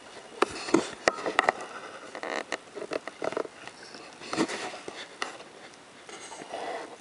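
Close handling noise from a diver moving about in a small boat: irregular sharp clicks and knocks with rustling between them, busiest in the first half, and a softer wash of water sound near the end as his hand reaches into the river.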